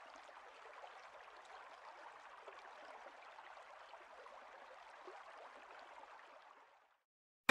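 Faint, steady hiss of noise with no tone or beat, stopping about seven seconds in.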